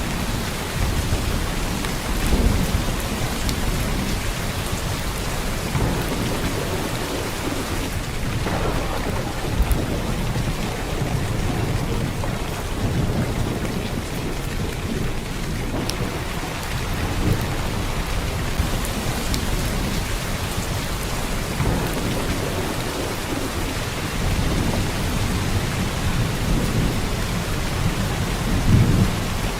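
Heavy downpour of rain: a steady, dense hiss, with low rumbling swells now and then.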